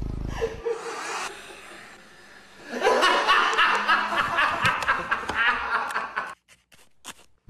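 A man laughing in snickers and chuckles, loudest from about three seconds in and cutting off suddenly near the end.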